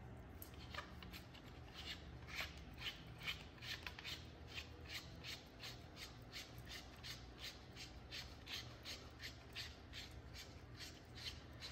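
A nut or fitting being turned by hand on the threaded rod of a car's front shock absorber, metal scraping on metal in a repeated rasp about twice a second.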